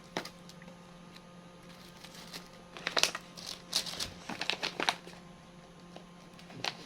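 Crinkling of a plastic snack packet being handled and opened, in a run of crackly bursts between about three and five seconds in, after a single click just after the start. A faint steady hum lies underneath.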